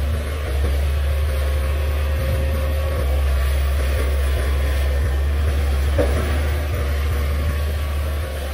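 Komatsu PC500LC hydraulic excavator's diesel engine running steadily under working load as the boom lowers the bucket to dig, a deep steady drone, with one short knock about six seconds in.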